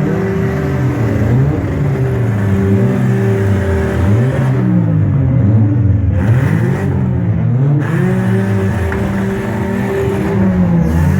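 Several demolition-derby car engines revving up and down at once, their pitches rising and falling over one another.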